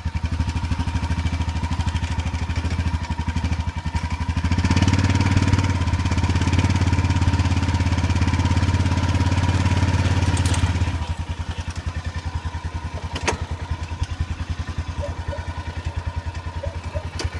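Engine of an old Honda four-wheel-drive ATV running while towing a stuck mower out of a ditch on a strap: it revs up and pulls under load for about six seconds from roughly five seconds in, then drops back to a lower, steady run.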